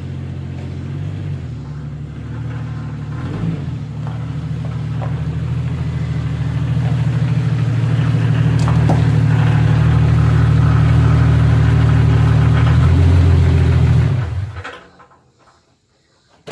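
Jeep Cherokee XJ engine running as the Jeep drives slowly up close, getting louder, then switched off about fourteen seconds in.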